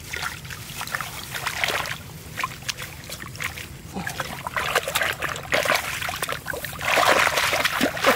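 Water splashing and trickling in irregular strokes, heaviest about seven seconds in, as when someone works by hand in shallow water catching fish.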